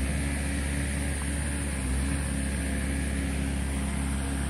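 An engine running steadily out of sight, an even low drone that holds the same pitch throughout, with a steady high hiss above it.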